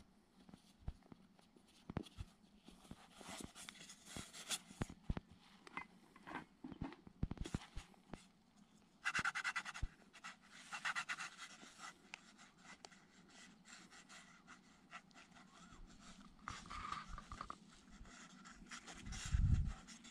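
Hands working a thin white plastic sheet onto a plastic funnel-lid fish trap: irregular rustling, crinkling and scratching of plastic, with small clicks. A dull bump near the end is the loudest sound.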